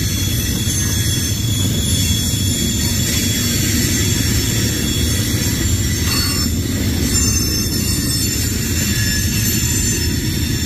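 Loaded tank cars of a freight train rolling steadily past, a continuous low rumble of steel wheels on rail with a thin, high wheel squeal held over it.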